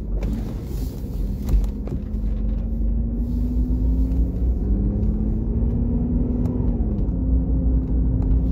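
Car engine and road rumble heard from inside the cabin as the car pulls away and gathers speed. The engine note climbs, drops back twice as the gears change, then holds steady, with a few light clicks in the first two seconds.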